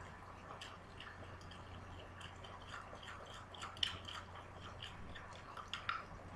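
Beef sizzling faintly in a wok over a gas flame, a steady run of small crackles and ticks. Two sharper taps, about four and six seconds in, as brown sugar is tapped out of a small glass dish into the pan.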